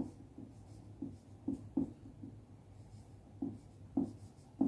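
Handwriting: a handful of short, quiet strokes at irregular intervals, made while the term "alveolar air" is being written out.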